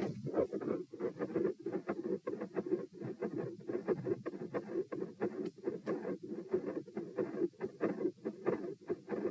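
Heart sounds heard through a stethoscope at the pulmonic area: a steady run of short thuds of the heartbeat, several a second.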